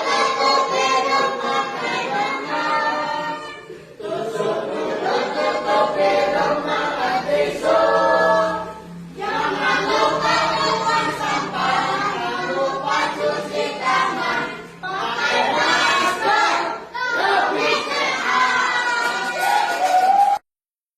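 A group of voices singing together in phrases of a few seconds each, with short breaks between them, cutting off suddenly near the end.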